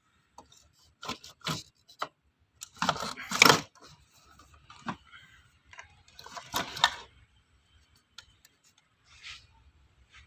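Irregular clinks, knocks and scrapes of hand tools and metal parts being handled, loudest about three seconds in and again near seven seconds.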